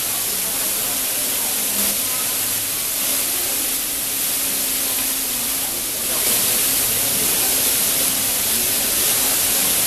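Heavy rainwater pouring off the platform roof in sheets and splashing onto the flooded platform: a steady, hissing rush of water.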